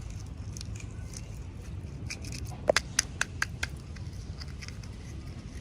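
Small toy packaging being handled and opened: faint scratchy ticks, then a quick run of about six sharp clicks a little past halfway, over a steady low hum.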